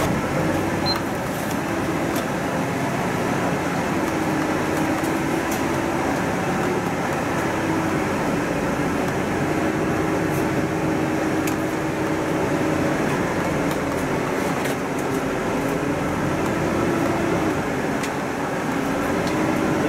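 Inside a moving city bus: steady engine and road noise with a hum whose pitch slowly rises and falls a few times, and a few light rattles.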